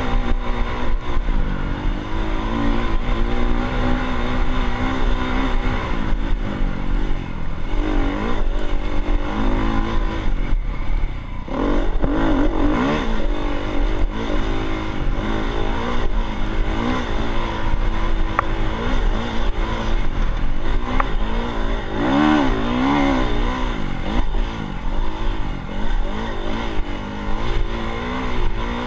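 Dirt bike engine running under way, its pitch rising and falling over and over with the throttle. It eases off briefly about eleven seconds in, then picks up again.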